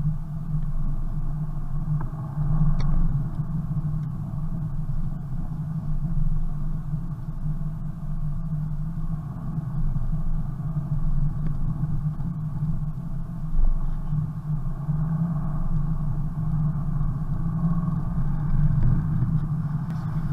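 Car driving on a packed-snow road, heard from inside the cabin: a steady low engine drone with tyre and road rumble.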